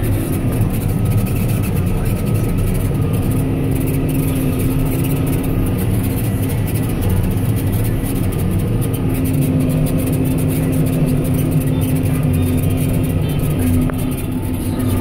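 John Deere 7920 tractor's six-cylinder diesel engine running steadily under baling load, heard from inside the cab.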